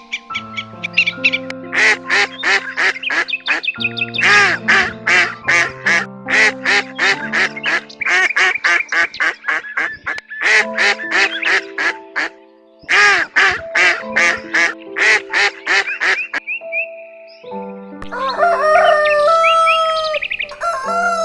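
Ducks quacking in fast runs of short calls, several a second, over background music with held notes. Near the end a different bird calls with longer cries that bend in pitch.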